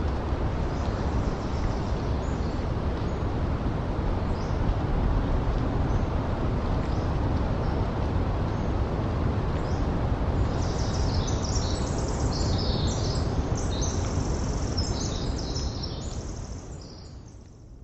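Steady low rumble of distant ocean surf under a breeze through the forest. Scattered high bird chirps become busy about halfway through, then the whole recording fades out near the end.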